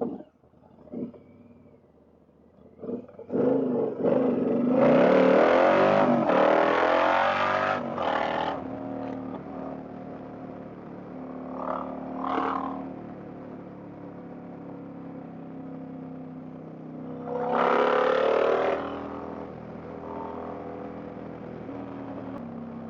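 Indian Challenger motorcycle's V-twin engine pulling hard with its pitch rising, from about three to eight seconds in, then settling to a steady cruise. A second, shorter hard pull with rising pitch comes near the end.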